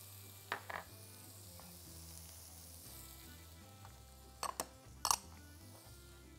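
Frying-pan sauce of onion, tomato, pickled jalapeño and parsley sizzling quietly in oil, with a few sharp clicks: two about half a second in and three between four and five seconds in.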